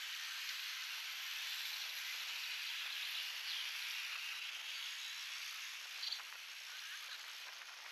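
A group of bicycles rolling past on a paved road: a steady hiss of tyres and freewheels, with a brief high chirp about six seconds in.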